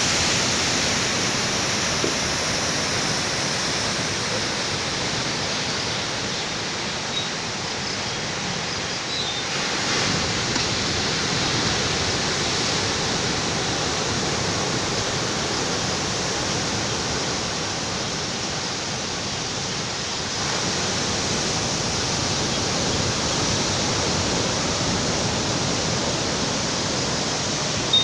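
Ocean surf breaking on a beach, a steady rushing wash of waves.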